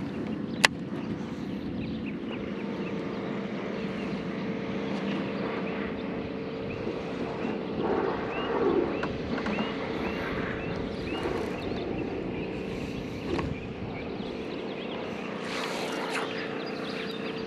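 A steady motor drone with a held hum, and one sharp click about half a second in.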